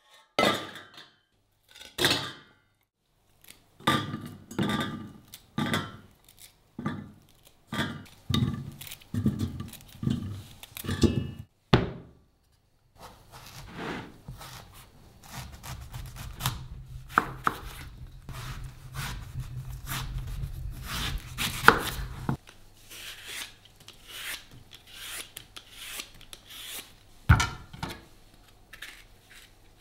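Kitchen knife cutting a mango and small stone fruit on a plastic cutting board: a run of sharp knocks, then a stretch of steady scraping as the blade slices through the fruit, and one sharp knock of the blade on the board near the end.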